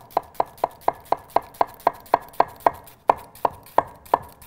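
Blue-steel Japanese chef's knife chopping down through a half red onion onto an end-grain wooden cutting board: a steady run of crisp taps, about four a second, slowing slightly after about three seconds.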